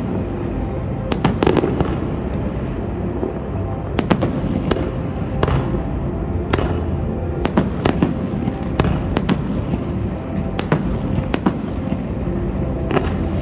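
Fireworks display: about twenty sharp bangs at irregular intervals, sometimes several in quick succession, over a continuous rumble.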